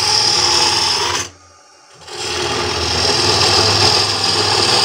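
Hollowing tool cutting into the end grain of a wooden blank spinning on a wood lathe: a steady cutting sound that stops for about a second near the middle, then starts again.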